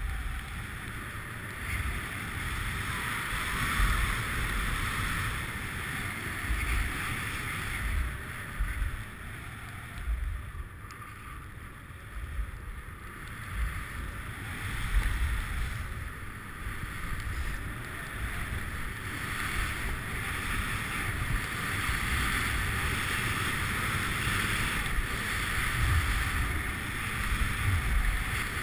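Skis sliding over snow, a continuous hiss that swells and eases through the run, with wind rumbling on the microphone.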